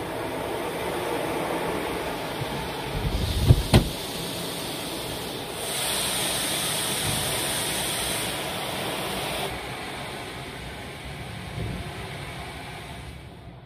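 Automatic drive-through car wash heard from inside the car: a steady rush of water spraying over the body and windows. Two sharp thumps come about three and a half seconds in, and a louder, higher hiss runs from about six to nine and a half seconds in.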